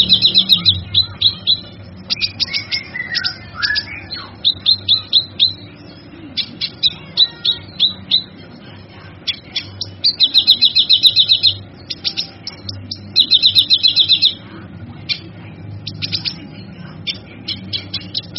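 Male kinoy bird singing: quick series of sharp high chirps broken by fast rattling trills, two of them longer and denser near the middle.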